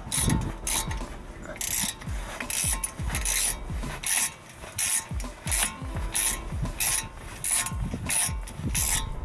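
Hand ratchet with a hex bit turning a front brake caliper guide-pin bolt, its pawl clicking in short rasping runs about twice a second as the handle is swung back and forth.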